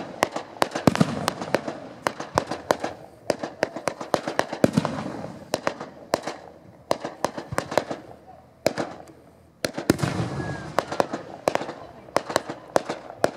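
Fireworks display: a rapid, irregular string of sharp bangs and crackles from bursting shells. Heavier booms come about a second in, near five seconds, and again just before ten seconds after a brief lull.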